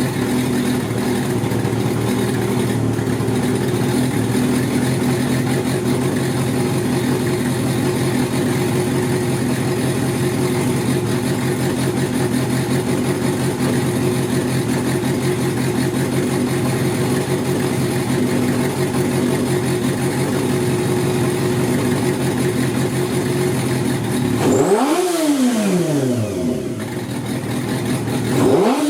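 Kawasaki Zephyr χ air-cooled 400 cc inline-four motorcycle engine, on TMR racing carburettors, running steadily. Near the end it is blipped twice, each rev rising sharply and dropping straight back.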